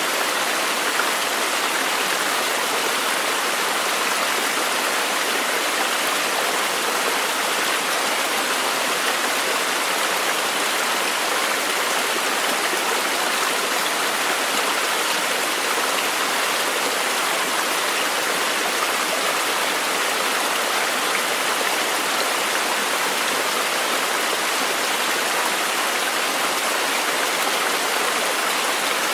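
Steady rushing water: an even, unbroken hiss with no distinct drops, splashes or changes.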